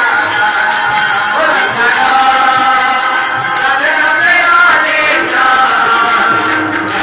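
Live devotional bhajan music: a hand drum and a steady, fast jingling beat of small percussion under held melodic tones.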